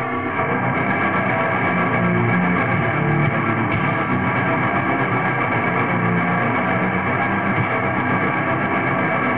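Raw lo-fi black metal music: distorted electric guitar and bass in a dense, unbroken wall of sound.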